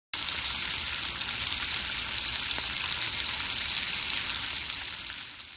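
Strips of meat frying in a pan of hot fat, a steady sizzle that fades out near the end.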